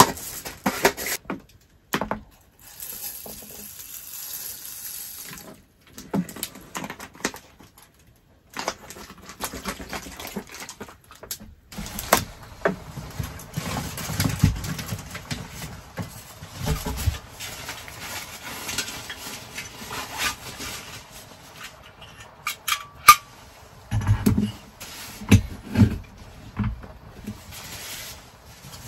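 Rice and water handled in a black metal mess tin: rice poured in, then water running and sloshing as it is prepared. Near the end, a few light knocks and clicks.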